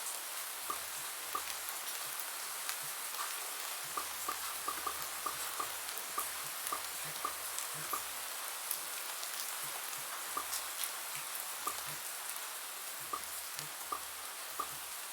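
Bubble-pop sound effects: short, slightly pitched pops at an irregular pace, about one to three a second, over a steady hiss of rain.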